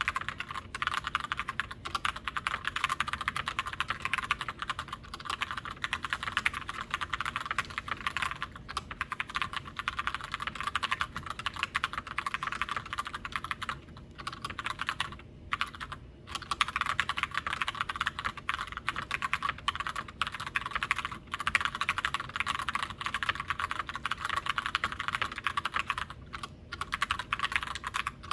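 Continuous fast typing on a Glorious GMMK White Ice TKL mechanical keyboard with tactile Gateron Brown switches: a dense stream of key clicks, broken by a few brief pauses past the middle and near the end.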